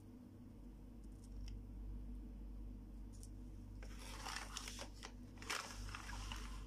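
Plastic toy kitchen pieces handled and pushed about on a cloth: a few faint clicks, then about four seconds in a couple of seconds of rustling and light plastic clatter, over a steady low hum.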